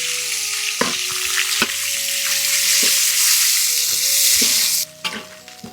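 Meat stir-frying in hot oil, sizzling steadily, with a few short knocks of the spatula against the pan. The sizzle cuts off suddenly near the end.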